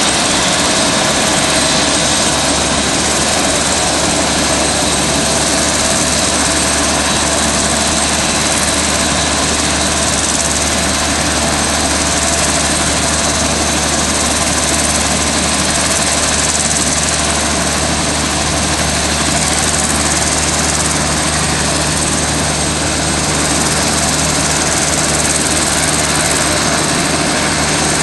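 Sikorsky AirCrane heavy-lift helicopter running close by: a loud, steady mix of turbine whine and rotor and engine noise that holds level throughout.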